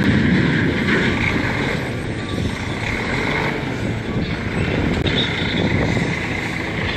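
Diesel engine of a Mercedes-Benz dump truck running steadily as the truck moves slowly forward.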